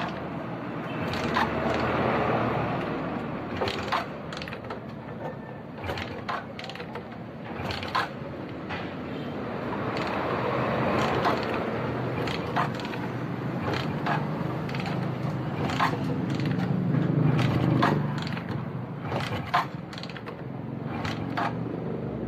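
Suzuki Smash 115 motorcycle engine being started on a little choke: three starting attempts in which the engine swells up briefly and fades again, among sharp irregular mechanical clicks. It is the hard start of a new bike whose fuel supply is weak until it warms, so it catches but will not keep running.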